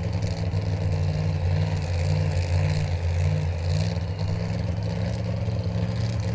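Drag-racing car engine running steadily at low revs with a deep, even rumble.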